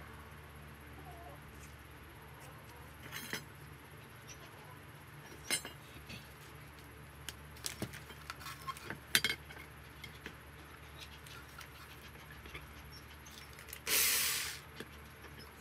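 Scattered light clinks and taps as bent steel rods are handled and marked on a wooden block, then near the end an electric drill runs for under a second, its bit starting into a steel rod.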